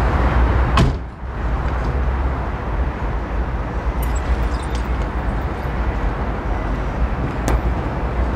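A car door shuts with a sharp click about a second in, over a steady low vehicle rumble. Another click comes near the end.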